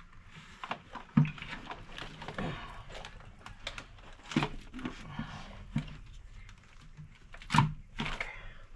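Scattered light clicks and knocks of engine parts being handled and set in place while fitting intake manifold gaskets, with two sharper knocks, one about a second in and one near the end.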